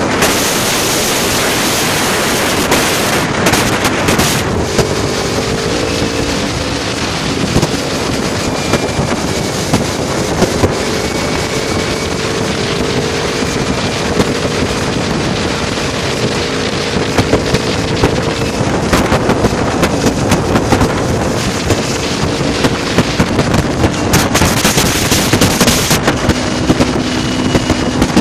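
Wind buffeting the microphone on a moving motorcycle, over the steady drone of Harley-Davidson V-twin engines cruising at highway speed.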